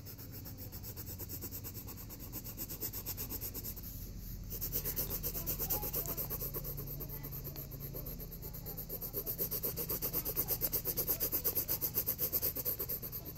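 Pencil rubbing on sketchbook paper in rapid back-and-forth shading strokes, a steady scratchy rasp that grows louder in the second half.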